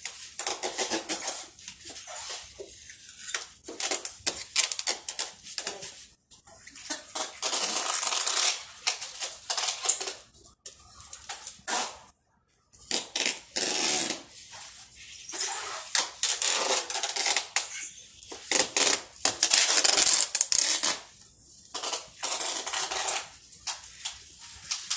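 Packing tape being pulled off its roll and pressed onto a cardboard box: repeated screechy pulls of a second or two each, with short pauses between them.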